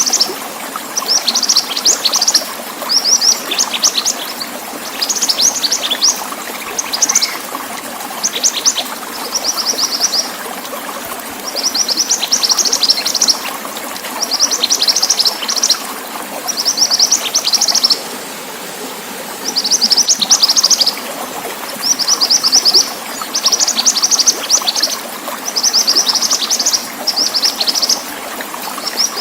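Mantenan songbird singing a string of short, high, rapid chattering phrases, one every second or two with brief gaps between them, over a steady hiss of running water.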